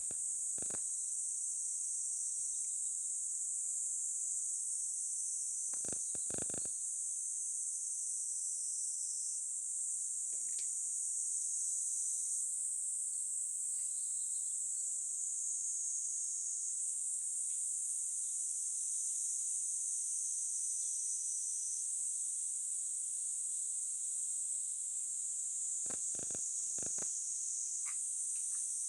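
Steady high-pitched insect chorus, chirring without a break. A few brief soft knocks or rustles come about six seconds in and near the end.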